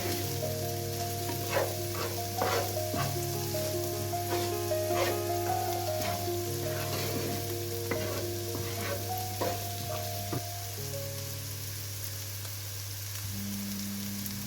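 Food sizzling in a frying pan while being stirred, a utensil scraping and clicking against the pan over and over; the stirring stops about ten seconds in and the sizzle carries on. Soft background music with held notes plays underneath.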